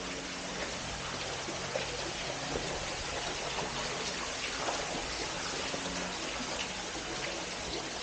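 Steady hiss of trickling water with small scattered ticks, over a faint low hum.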